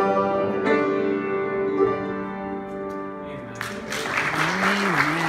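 The closing chord of a piano accompaniment rings out and fades. About three and a half seconds in, the congregation breaks into applause, and a single voice calls out over the clapping near the end.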